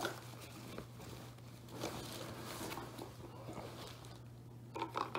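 Plastic shopping bag rustling softly as hands rummage through it, with a few light knocks and clicks near the end, over a steady low hum.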